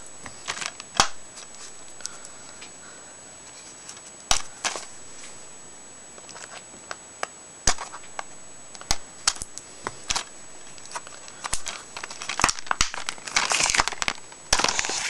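Plastic wrapping on a DVD box set being torn and crinkled as it is opened, with scattered sharp clicks and snaps that grow into a dense crackling near the end.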